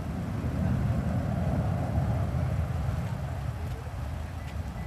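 Low rumble of a departing Boeing 737-800's jet engines climbing away in the distance after takeoff, swelling a little about a second or two in and then slowly easing off.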